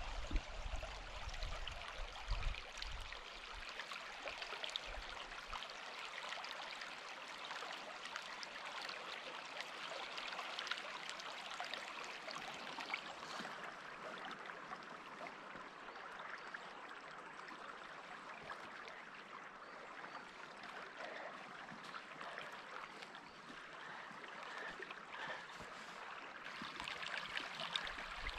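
Small river running steadily, a continuous rush of flowing, gurgling water. A few low wind bumps on the microphone near the start and again near the end.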